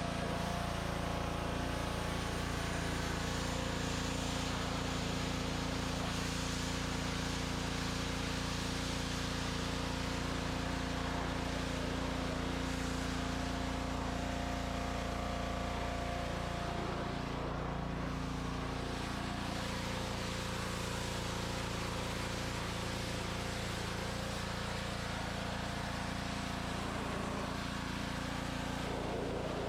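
Pressure washer running steadily, its motor giving a constant drone over a hiss of spray. The motor's pitch sags briefly a little past halfway.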